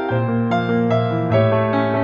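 Gentle background keyboard music: soft piano-like notes struck about every half second over a held bass note.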